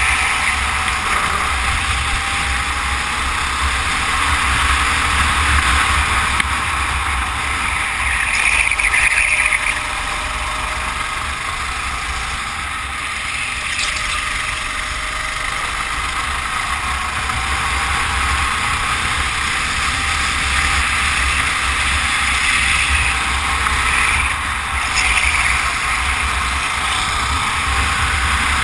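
Racing kart engine running at speed, with wind rumbling on the microphone.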